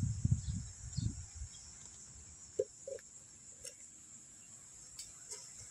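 Steady high chirring of crickets or other insects. Over it, low rustles and bumps in the first second and a half as the pesticide bottle is handled over the cup of soil, then a few faint short clicks.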